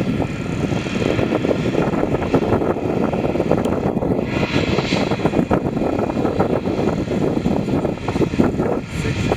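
Jet airliner engines running steadily at low power, a continuous rough roar, as an Airbus A320-family jet taxis.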